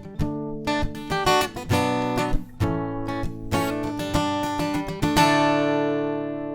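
Acoustic guitar playing the closing bars of the song, picked and strummed chords, ending on a final chord about five seconds in that rings out and slowly fades.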